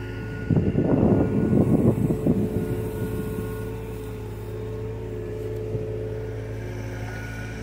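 John Deere mini excavator's diesel engine running steadily under load. About half a second in, a louder rough rush lasting about two seconds as the bucket works the soil.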